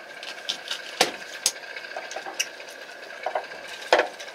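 A steady high whine, like a small motor running, with scattered sharp knocks and clicks; the loudest knocks come about a second in and near the end.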